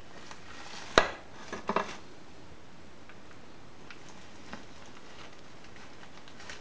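Metal clicks and clanks from the opened gearbox of a 1981 Yamaha SR250 as it is shifted through the gears by hand while a shaft is turned. One sharp clack about a second in, then a quick run of smaller clinks, and a few faint ticks later.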